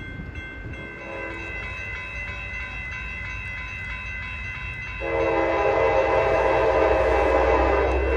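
Approaching Amtrak passenger train sounding its horn: a short toot about a second in, then a long blast from about five seconds in. Under it runs a low locomotive rumble that grows louder near the end as the train nears.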